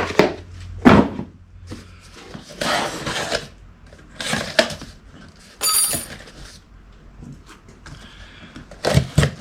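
Cardboard parts packaging being cut and pulled open with a razor knife: scraping, rustling strokes and knocks, with a brief high squeak near the middle.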